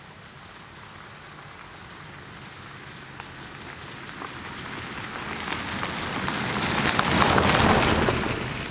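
1997 Jeep Wrangler TJ driving past on a gravel road, its tyres crunching and crackling over the gravel. The sound builds steadily as it approaches, is loudest about seven to eight seconds in as it passes close by, then fades as it drives away.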